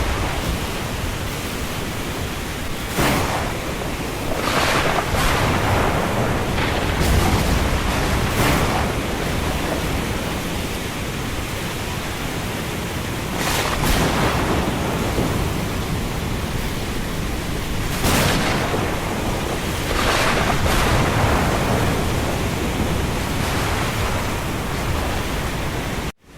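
Storm ambience: a steady rush of wind and rain, swelling in gusts every few seconds. It cuts out for an instant right at the end.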